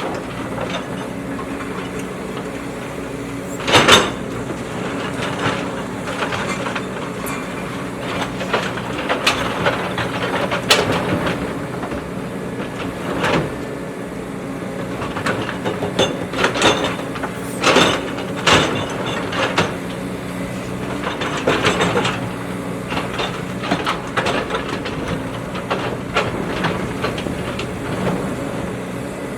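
JCB backhoe loader's diesel engine running steadily under work, with repeated sharp clanks and knocks as it digs, the loudest about four seconds in and again around eighteen seconds.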